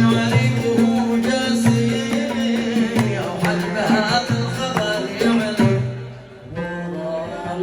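Yemeni song music in an instrumental passage: plucked strings over a hand-drum rhythm. The sound thins out briefly about six seconds in.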